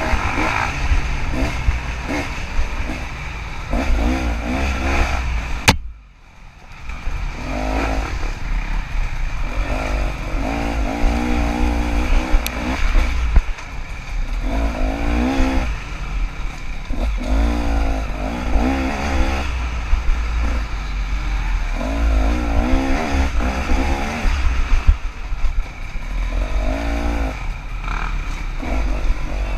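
KTM 300 two-stroke dirt bike engine revving up and down over and over as the throttle is opened and closed while riding. A sharp click about six seconds in, then the sound briefly drops away for about a second before the engine picks back up.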